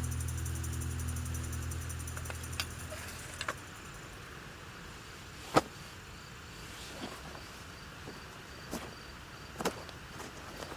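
Acoustic guitar background music fading out over the first few seconds. Then quiet outdoor ambience with a few scattered sharp clicks, the loudest about halfway through, and a faint high pulsing chirp.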